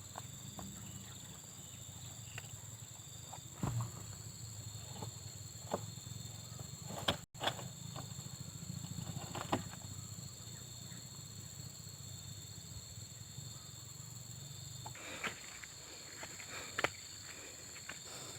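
Insects droning steadily on high, even tones, with scattered short clicks and knocks. A low hum underneath stops about fifteen seconds in.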